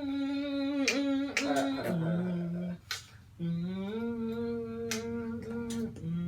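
A man humming an instrumental beat for a rap verse, moving between long held low and higher notes, with a few finger snaps.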